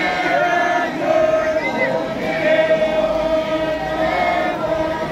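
A crowd of protesters chanting in unison, many voices holding drawn-out notes in repeated phrases.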